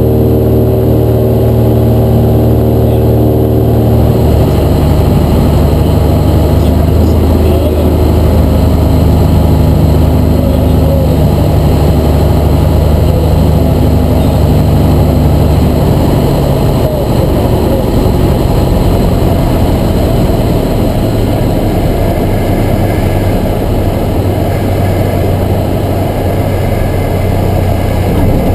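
Propeller-driven piston engine of a 1956 Cessna 172, a Continental O-300 six-cylinder, heard from inside the cockpit during approach and landing. Its steady note changes about four seconds in, and the sound grows rougher and noisier in the last third as the plane rolls on the runway.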